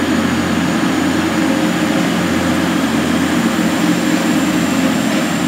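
Class 185 diesel multiple unit pulling away under power, its Cummins diesel engines giving a steady drone.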